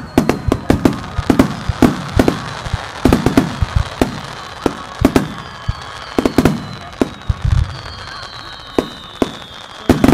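Fireworks barrage: a rapid, irregular run of sharp bangs and echoing booms, thinning out after the first few seconds. Several long high whistles slide slowly down in pitch, and a fresh cluster of bangs comes near the end.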